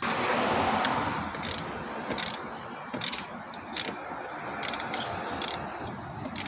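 Hand ratchet wrench clicking steadily as a fastener on the engine's intake hose is loosened, with a few sharper clicks and knocks of the tool against the parts.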